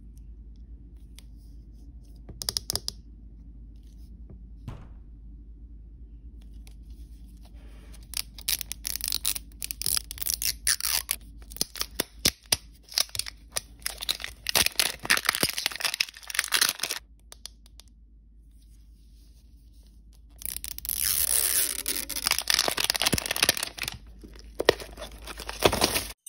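Plastic wrapping on an L.O.L. Surprise doll ball being torn and crinkled by hand. It comes in two long stretches of crackling and rustling, with a couple of sharp plastic clicks before them.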